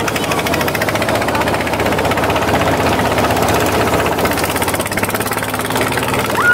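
A small speedboat's motor running steadily under way, with a fast, even pulse.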